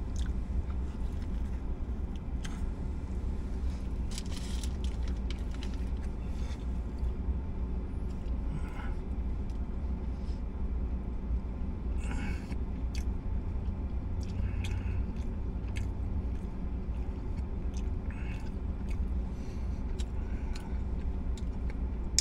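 A man chewing a mouthful of a crispy-coated fried chicken and Whopper burger, with scattered brief crunches and mouth clicks, over a steady low rumble in the car's cabin.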